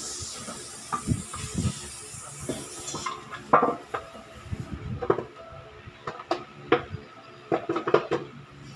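Metal tools and engine parts clinking and knocking, a dozen or so sharp, irregular clinks with brief ringing, while a Toyota 4A cylinder head is being dismantled. A steady hiss fades out about three seconds in.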